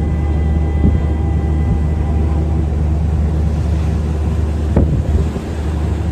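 Steady low drone of a ship's engine and machinery heard on board, with a brief knock about a second in and a sharper one near five seconds.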